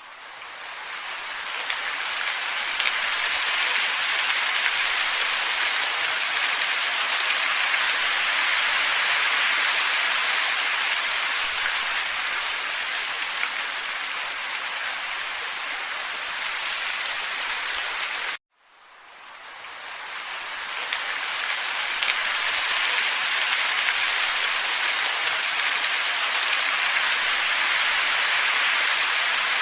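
Steady rushing hiss of a looped ambient wind track. It cuts out abruptly about 18 seconds in and fades back up over a couple of seconds.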